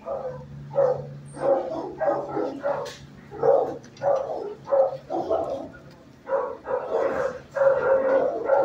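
Dogs barking repeatedly, short barks about two a second, growing denser near the end, over a steady low hum.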